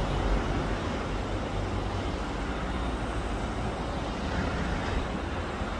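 Steady outdoor background noise: an even low rumble with hiss and no distinct events.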